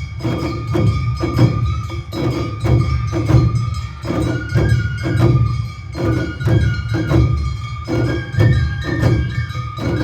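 Awa Odori festival band music (narimono): drums and bells beating a brisk, steady two-beat rhythm under a high held melody that steps from note to note.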